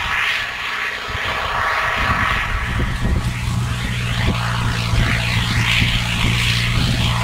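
Belarus MTZ 892 tractor's four-cylinder diesel engine running steadily under load while pulling a Pöttinger Servo 25 reversible plough through the soil. The drone grows fuller about two seconds in as the tractor comes close.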